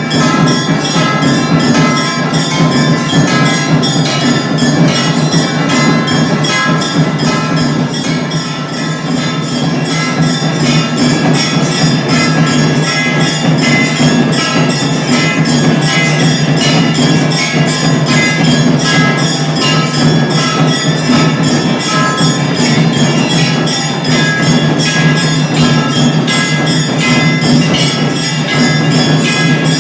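Music of rapid, even percussion with ringing bell tones, running steadily at a constant loudness.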